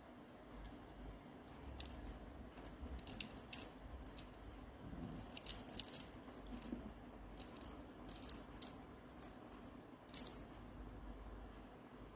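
Small jingle bell on a cat's wand toy jingling in short, irregular bursts every second or two as a kitten bats and paws at the toy.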